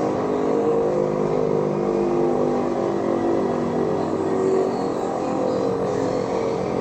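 Low droning electronic tones, several notes held together and shifting in pitch every second or two, as in the ominous background drone of a mock emergency alert broadcast.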